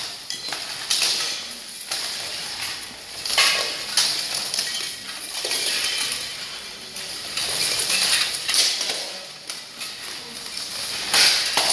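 Steel swords and plate armour clanking as two armoured fighters spar. Sharp metallic clashes come at irregular intervals, with some strikes bunched together.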